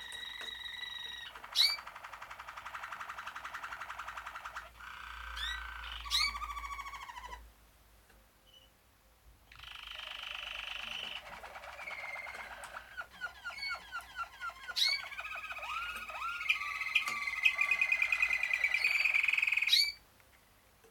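Malinois (Waterslager) canaries singing long rolling, trilled song phrases with sharp upswept notes. The song breaks off for about two seconds in the first half, then resumes and stops abruptly near the end.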